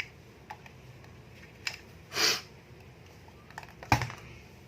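Scattered small clicks and taps of tiny camera parts and tools being handled on a workbench, the sharpest a little before the end, with a short sniff about two seconds in.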